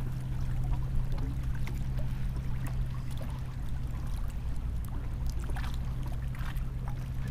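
Small waves lapping and splashing against a kayak hull, with scattered light splashes over a steady low hum.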